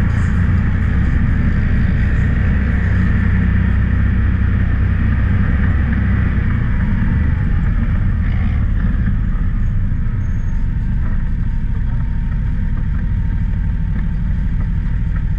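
Can-Am Maverick X3's turbocharged three-cylinder engine running under way on sand, heard from inside the open cab. The engine eases off a little about halfway through.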